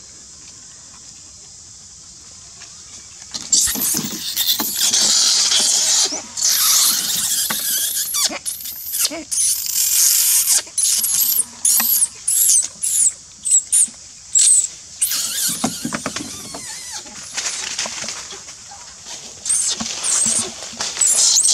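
Baby long-tailed macaque screaming in distress. The shrill cries start about three and a half seconds in as one long run, then break into many short squeals and keep going.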